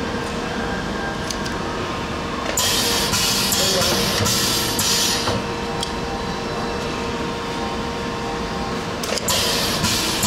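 Pad printing machine running: a steady hum with a constant tone, broken by short hissing bursts of about a second, a few seconds apart, and a few faint clicks.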